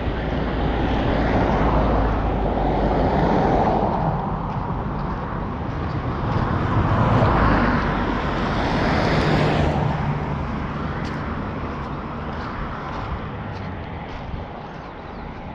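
Road traffic: vehicles pass close by one after another, each swelling and then fading, with an engine hum under the second. The road noise dies down over the last few seconds.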